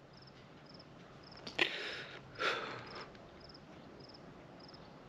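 Crickets chirping faintly, a short pulsed chirp repeating at an even pace, with two short breaths close to the microphone about one and a half and two and a half seconds in.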